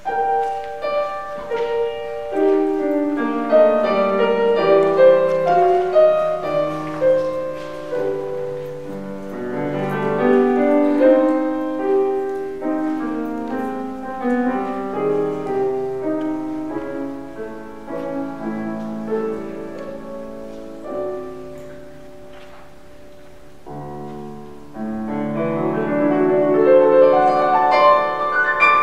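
Solo piano playing classical-style music. It thins out and grows softer about two-thirds of the way through, then swells again near the end.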